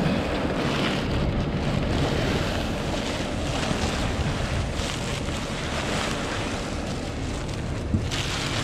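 New Holland T5 tractor running steadily as it drives, heavily mixed with wind buffeting the microphone.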